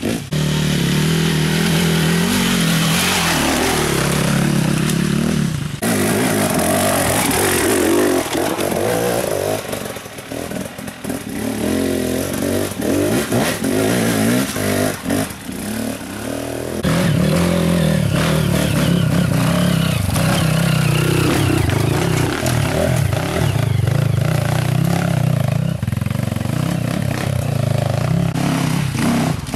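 Enduro dirt bike engines revving and pulling hard on an off-road trail, the pitch rising and falling with the throttle. The sound changes abruptly a couple of times, and through the middle it is quieter and more uneven, with scattered knocks.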